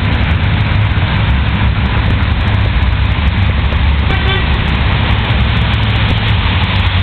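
Steady rumble of city traffic, with a short pitched tone about four seconds in.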